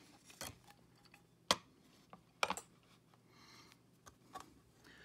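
Scattered sharp clicks and knocks as a metal mounting bracket is handled and set against the back housing of a MetroLinq 2.5 dish antenna. The loudest knock comes about a second and a half in, then two quick clicks close together, with a short scrape in between the later clicks.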